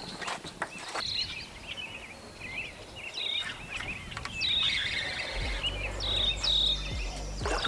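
Birds chirping and calling outdoors, with one short high call repeated about once a second over a busy twitter of chirps. A low rumble comes in about five seconds in.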